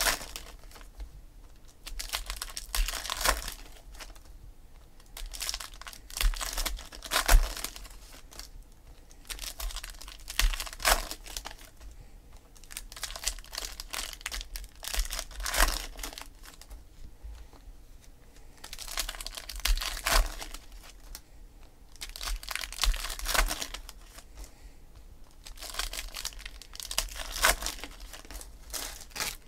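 Foil trading-card pack wrappers crinkling and tearing as they are opened by hand, in repeated bursts a few seconds apart.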